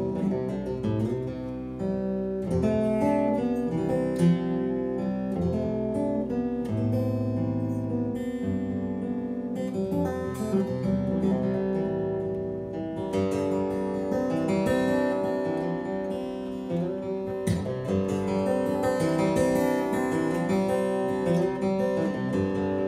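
Solo acoustic guitar playing an instrumental passage, plucked notes and chords ringing over one another.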